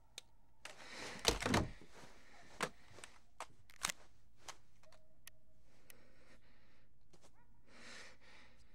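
Handling sounds of a mobile phone in the hands: a louder thump about a second in, then several short sharp clicks spread through the next few seconds, over a faint steady low hum.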